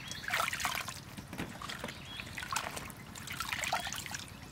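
Vegetables being washed by hand in a steel basin of water: irregular splashes as they are rubbed and lifted, with water trickling and dribbling off them back into the basin, several times.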